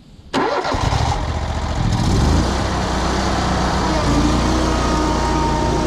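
Hustler zero-turn mower's engine running under load as the mower tries to drive out of mud for traction. The sound comes in suddenly about a third of a second in and then holds steady and loud.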